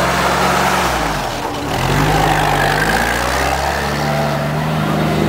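A WWII jeep's four-cylinder Go Devil flathead engine running under load while driving off-road. It eases off briefly about a second and a half in, then pulls again steadily.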